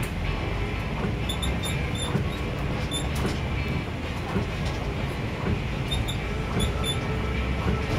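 Steady low rumble of a city bus in motion heard from inside the cabin, engine and road noise together, with a few faint high ticks.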